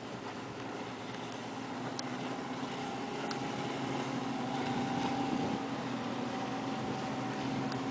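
Wellcraft Scarab 35 sport-fishing boat running at speed on outboard power: a steady engine drone over a hiss, growing louder until about five seconds in as the boat passes close.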